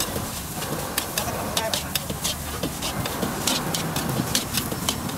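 Metal spatula scraping and clanking against a wok in quick irregular strokes as food is stir-fried, over a steady sizzle.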